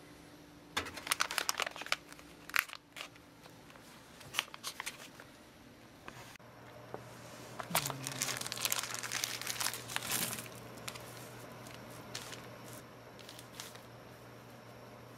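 Packaging being handled and crinkling, in clusters of sharp rustles about a second in and around four to five seconds, then a longer, denser stretch from about eight to ten seconds in, thinning to scattered ticks.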